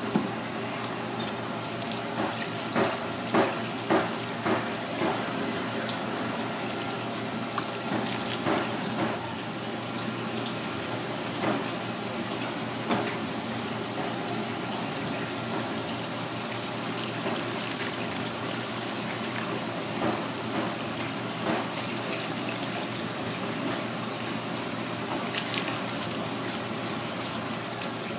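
Tap water running steadily into a sink while a fish is gutted and rinsed. Scattered clicks and knocks of handling on the plastic cutting board, most of them clustered a few seconds in.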